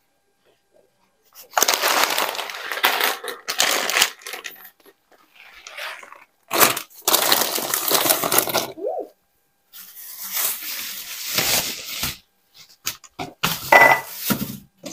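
Plastic grocery bags and packaging rustling and crinkling in about four bursts of one to two seconds each, with a few sharp clicks and knocks near the end as items are handled and put away.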